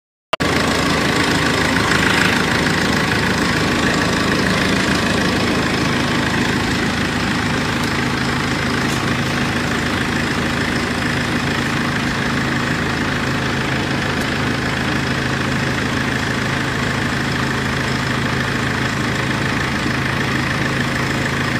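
Cummins 2.8-litre four-cylinder turbo diesel crate engine idling steadily.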